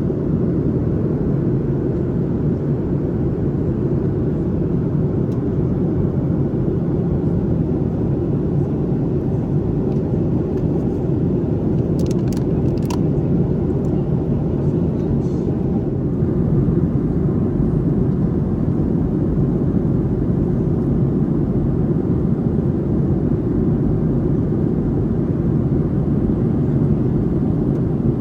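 Steady cabin roar inside a Boeing 737-800 airliner in flight, from its CFM56 engines and the airflow over the fuselage, heard as a deep, even rush. A few faint clicks come about twelve seconds in, and the roar grows slightly louder a little past halfway.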